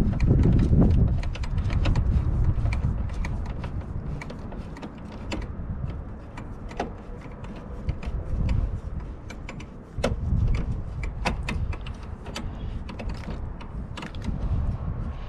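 Hand tools and fasteners being worked on a car's front grille: scattered sharp mechanical clicks and ratcheting over a low rumble that is heaviest in the first couple of seconds.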